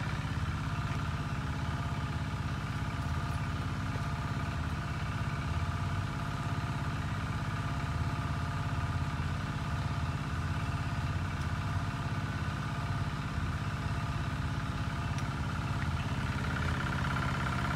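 A small engine running steadily at an even speed: a constant drone that does not change pitch.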